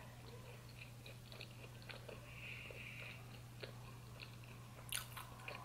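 Quiet room tone with a steady low hum, broken by faint scattered ticks and clicks and one sharper click about five seconds in.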